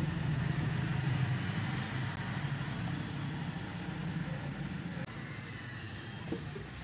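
A low, steady engine hum that slowly fades away.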